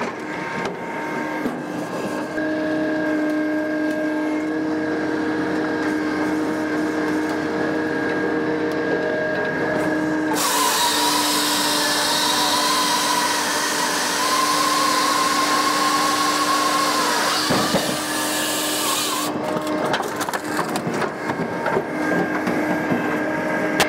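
Japa 365 Pro firewood processor running with a steady mechanical hum. From about ten seconds in its saw chain cuts through a log for about nine seconds, a harsh high-pitched noise over the hum, which then drops back to the hum alone.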